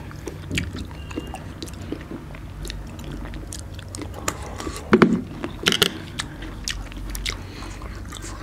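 Close-up mouth sounds of people biting and chewing grapes and pomegranate seeds: scattered crisp crunches and wet clicks, with a louder cluster about five seconds in.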